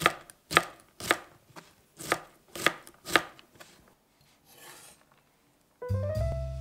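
Chef's knife chopping green beans on a cutting board: six sharp chops about half a second apart, with a short pause after the third. Music comes in near the end.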